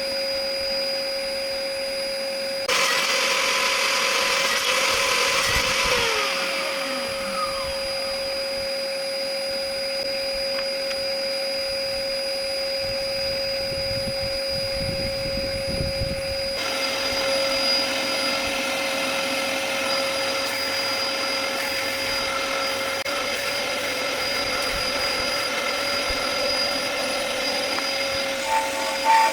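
Bosch GTS table saw running with a steady motor whine. The blade cuts through whiskey-barrel oak stave about three seconds in, adding a loud rasping noise for about three seconds, and a longer, busier stretch of cutting noise starts a little past halfway.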